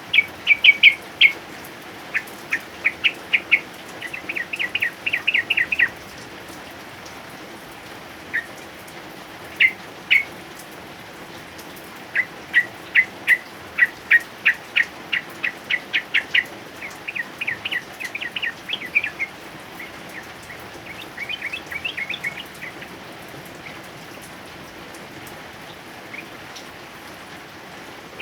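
Male sooty-headed bulbul (trucukan) singing in quick runs of short, sharp, repeated notes, several a second, broken by short pauses and dropping out for the last few seconds. Steady rain hiss runs underneath.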